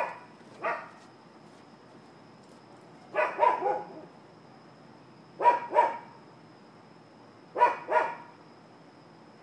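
Dog barking in short groups of two or three barks, a new group every two seconds or so.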